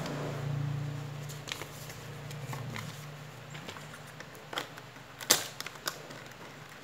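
Cardboard box and plastic wrapping being handled as a small router in a plastic bag is pulled out of its box: scattered clicks, scrapes and crinkles, the sharpest about five seconds in. A low hum sounds underneath in the first half and fades out.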